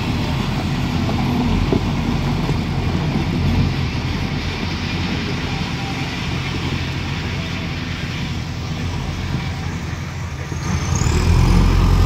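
JCB 4DX backhoe loader's diesel engine running as the machine drives and turns, growing clearly louder near the end as it revs up.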